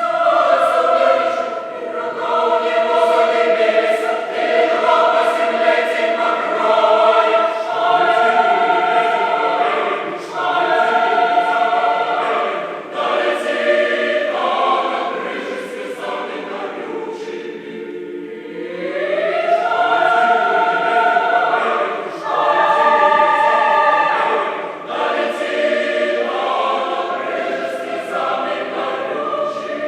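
Choir singing in full chords, phrases swelling and easing; a little past halfway the voices slide upward together in a rising glide.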